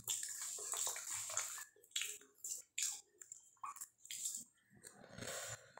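Wet chewing and mouth sounds of a person eating a big mouthful of rice mixed with dal by hand, in irregular smacks that thin out near the end, with soft squishing of the rice in the hand.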